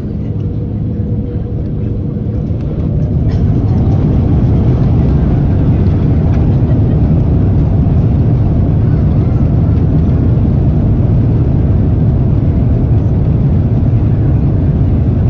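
Jet airliner's takeoff roll heard from inside the cabin: the engines spool up to takeoff thrust with a rising whine about three seconds in, then a loud, steady rumble of engines and wheels on the runway.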